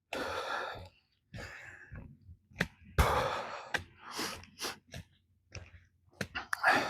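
A hiker's footsteps on the trail, irregular crunches and sharp clicks about once a second, with loud breaths into the clipped-on microphone at the start and about three seconds in.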